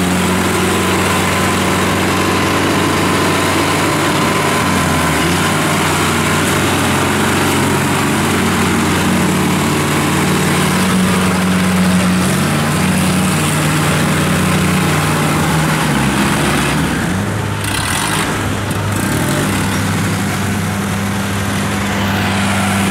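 Engines of tracked rice-field machines, a small tracked rice hauler and a combine harvester, running steadily as they crawl through deep mud; the engine note shifts up and down a few times with the load.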